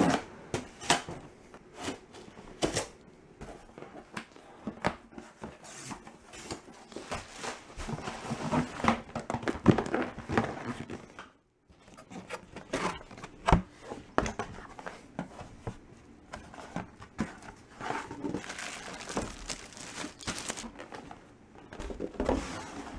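A cardboard shipping box being opened and unpacked by hand: packing tape tearing and cardboard crinkling and rustling, with scattered knocks and clicks as the boxes are handled. About halfway through, the sound drops out for a moment.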